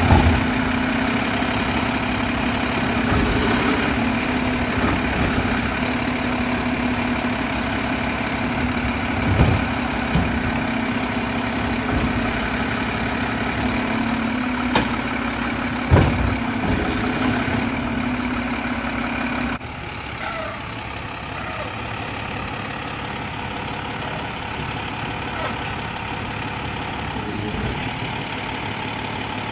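Mack LEU garbage truck running steadily while its Labrie Helping Hand automated side-loader arm grabs a recycling cart, lifts it and dumps it into the hopper. The empty plastic cart knocks sharply a few times. About two-thirds of the way through the sound drops abruptly to a quieter truck engine idling.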